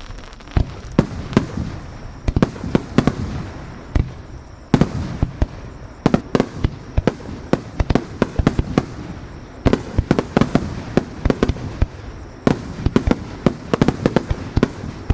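Aerial fireworks shells bursting in a dense grand-finale barrage: rapid sharp bangs, often several a second, over a continuous rumble of booms and crackle.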